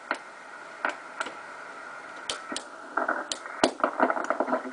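Rotary band switch of a Drake TR-7 transceiver clicking through its detents, several separate clicks over a faint steady hiss. About three seconds in, choppy receiver audio comes up from the radio's speaker as a station is tuned in.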